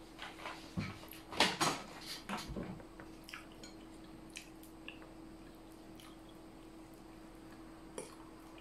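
Eating sounds: chewing sticky glutinous rice and a fork clicking against a plate, busiest in the first three seconds, then only a few faint ticks. A steady low hum runs underneath.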